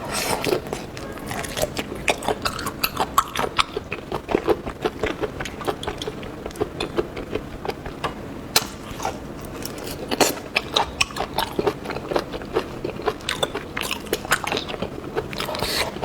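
A person eating seafood: an irregular run of wet biting, chewing and crunching clicks, several a second.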